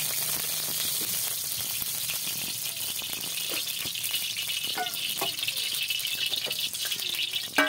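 Cooking oil heating in a hot aluminium kadai, sizzling with a steady hiss and scattered small crackles; one sharp click near the end.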